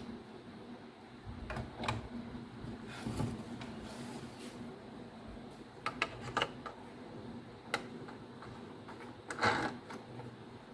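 Scattered light clicks and knocks of a replacement gear and other juicer-blender parts being handled and seated into place, the loudest knock near the end.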